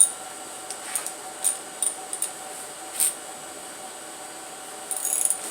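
Hand tools clicking and clinking on metal while a spark plug is taken out of a slant six engine: single sharp clicks at uneven intervals, then a short rattle near the end, over a steady low hum.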